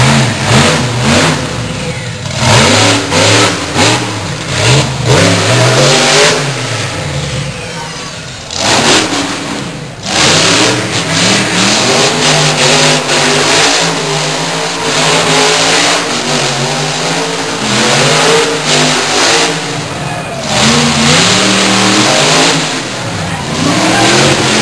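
Monster truck engine revved hard again and again, its pitch climbing and falling repeatedly, with a short lull about nine seconds in.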